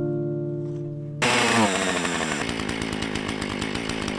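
A two-stroke gasoline chainsaw comes in suddenly about a second in and runs steadily at idle, a fast, rough, pulsing sound. Before it, a plucked guitar chord rings out and fades.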